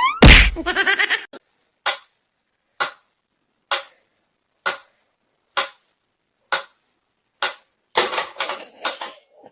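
A regular series of short, sharp taps or clicks, about one every second, seven in a row, after a loud burst at the start, followed near the end by a busier stretch of clattering noise.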